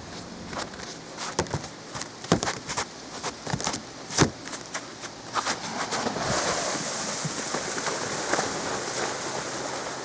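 Melting river ice cracking and popping as it breaks up, a series of sharp cracks; about six seconds in, a steady rushing noise takes over.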